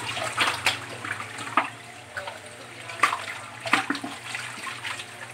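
Water sloshing and splashing irregularly in a sink as a fish is rubbed and washed by hand, with several sharper splashes.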